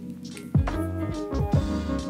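Lo-fi chillhop background music with a soft drum beat.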